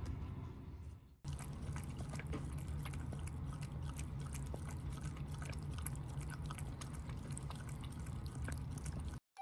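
A cat and a Shiba Inu lapping water from bowls: a quick, irregular run of small wet clicks and drips over a low hum, starting about a second in.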